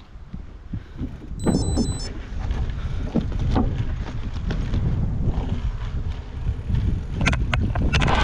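Wind buffeting an action camera's microphone during a mountain-bike ride, a continuous low rumble. Over it come knocks and rattles of the bike over bumps: a few about a second and a half in, and a quick run near the end.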